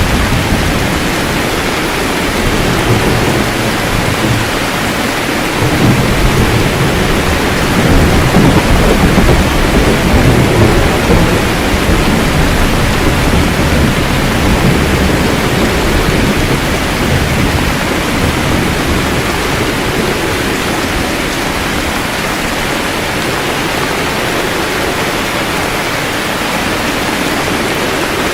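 Steady heavy rain hissing, with a low rolling rumble of thunder that swells about six seconds in, is loudest around eight to eleven seconds, and slowly dies back into the rain.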